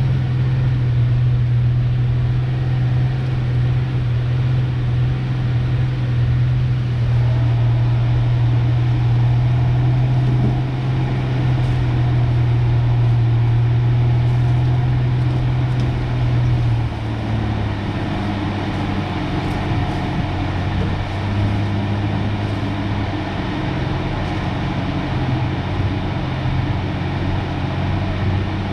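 1993 Ford Ranger pickup running as it is driven at an easy pace, a steady engine drone that drops to a lower, rougher note about two-thirds of the way through.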